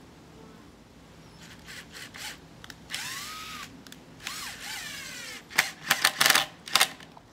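Cordless drill driving screws into pressure-treated lumber: two short runs of motor whine, the pitch bending under load as the screw bites, about three and four and a half seconds in. Then comes a quick series of loud, sharp knocks near the end.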